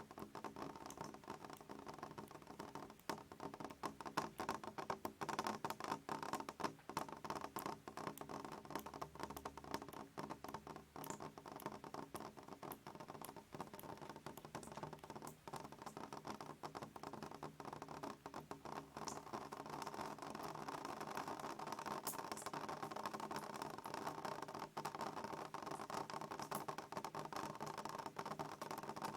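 Rain pattering steadily, a dense, irregular ticking of many small drops over a soft hiss.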